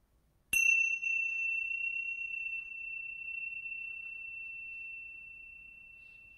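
A small handheld metal chime struck once about half a second in, then ringing with one clear high tone that slowly fades, used to open a moment of silent meditation.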